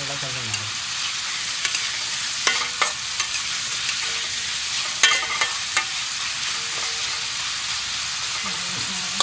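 Pork pieces sizzling in oil in a wok, a steady high hiss, while a metal spatula stirs and turns them, clicking and scraping against the pan several times.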